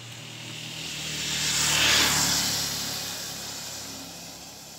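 A road vehicle passing close by, its engine and tyre noise swelling to a peak about two seconds in and then fading away.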